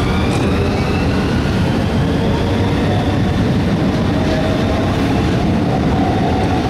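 Class 395 electric multiple unit pulling out of the platform and gathering speed past the listener: a steady loud rumble of wheels on rail, with an electric traction whine rising in pitch in the first second.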